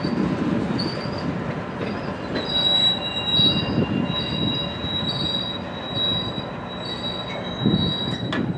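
Freight train's steel wheels squealing against the rails: a steady high squeal with a second squeal that pulses regularly, over the low rumble of rolling cars with a couple of heavier swells and a sharp click near the end.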